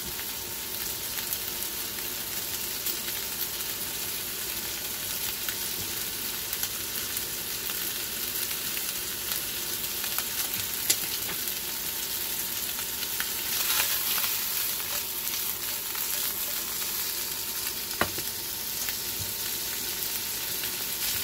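Cubes of sous-vided ground beef sizzling steadily in butter and rendered fat in a nonstick frying pan, with a couple of sharp clicks partway through.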